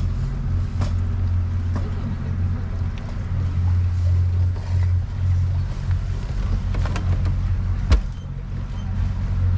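Low, steady drone of a small tour boat's motor running, its level wavering a little. A single sharp knock comes near the end.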